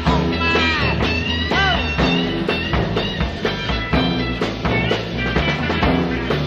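1960s psychedelic rock band playing an instrumental passage. A lead line slides and bends in pitch over a steady bass and regular drum beats.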